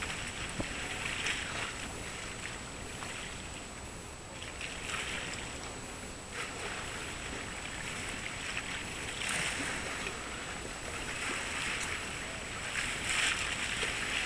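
Harbour water lapping and splashing in irregular swells every second or two, over a steady low background rumble.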